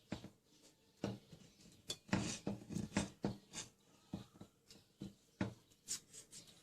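Knife cutting and scraping at a pot, a string of short, irregular scrapes and knocks.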